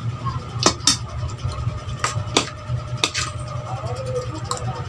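Eating sounds: a scattering of short, sharp clicks and smacks, about seven in all, over a steady low hum.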